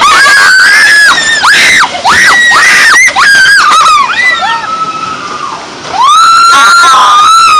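Children screaming on a river-rapids raft ride: a run of short, loud, high screams, a quieter stretch a little after halfway, then one long held scream near the end.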